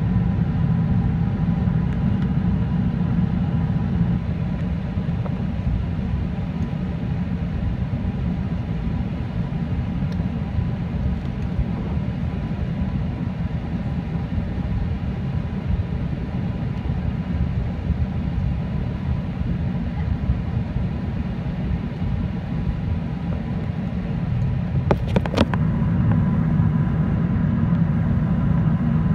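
Cabin noise inside an Airbus A380 on landing approach: the steady low rumble of the engines and airflow, with a faint steady whine. A brief clicking comes near the end, after which the rumble grows slightly louder.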